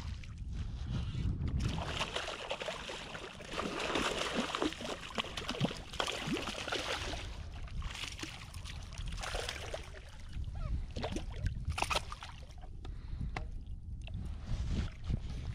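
A small hooked striped bass splashing at the water's surface as it is reeled in close and taken in hand, a run of short, irregular splashes heaviest in the middle of the stretch with another burst later on.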